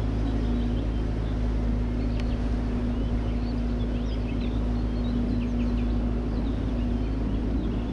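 Canal boat's engine running steadily under way, a constant low drone with a hum. Birds chirp briefly in the background.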